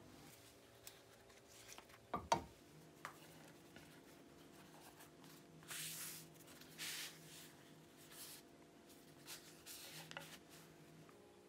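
Hands rubbing and smoothing a flour tortilla on a wooden cutting board, a few soft, dry swishing strokes. There are a couple of sharp knocks about two seconds in.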